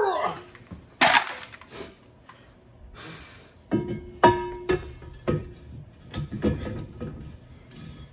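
Heavy steel brake drum on a 1978 Mack Cruiseliner's front hub clanking and scraping as it is worked over the hub and wheel studs. A loud knock comes about a second in, and a cluster of metal knocks around four to five seconds in rings briefly.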